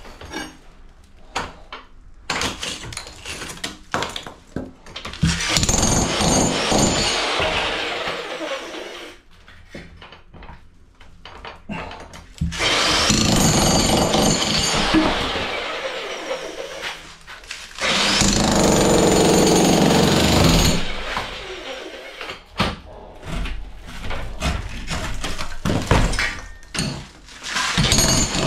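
Electric demolition hammer (jackhammer) with a chisel bit breaking out a brick door jamb, running in several bursts of a few seconds each, with quieter stretches of scattered knocks between.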